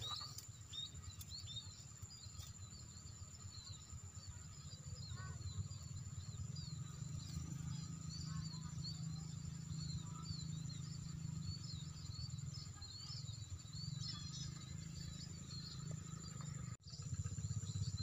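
A flock of munias twittering, with many short high chirps overlapping throughout, over a steady high insect-like whine and a low rumble. The sound drops out briefly near the end.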